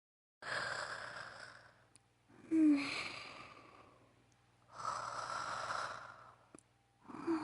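A woman's voice acting out an anime girl's snoring: slow, drawn-out breaths, with a short nasal snort about two and a half seconds in and another starting near the end.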